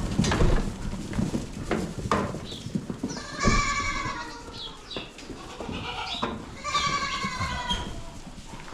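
Goats bleating, two long wavering calls about three and a half and seven seconds in, with a few knocks and scuffs in the first few seconds as the herd is let out.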